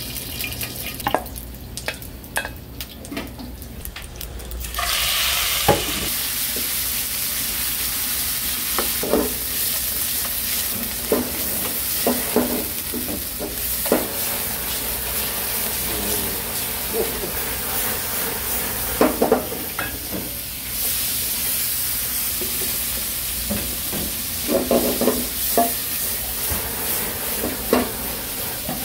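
Food frying in a hot pan: a sizzle that starts suddenly about five seconds in and carries on steadily, with repeated clacks of a utensil stirring against the pan.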